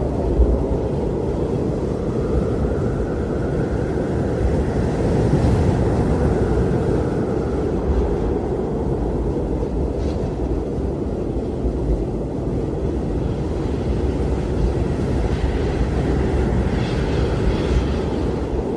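Blizzard wind blowing steadily with a deep rumble, rising and falling gently in gusts, with a faint whistling note that swells and fades a few seconds in.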